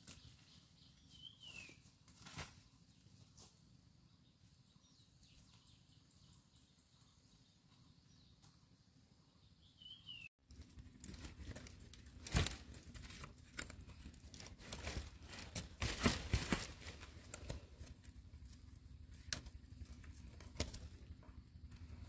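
Rustling, scraping and knocking handling noise, sparse at first and, after an abrupt cut about halfway through, a busier run of many sharp clicks and crackles. Two short falling whistles are heard in the quieter first half.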